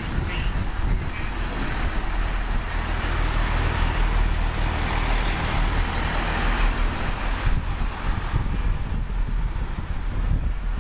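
Chiltern Railways Class 165 diesel multiple unit moving past along the platform, its underfloor diesel engines running with a steady low hum under the rumble of the wheels. The noise swells as the coaches pass closest, then eases as the train moves away.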